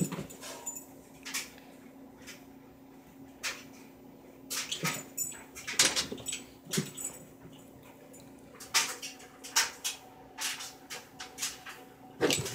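A puppy's paws scuffling and padding on carpet as it chases and pounces, in irregular bursts of quick scratchy clicks.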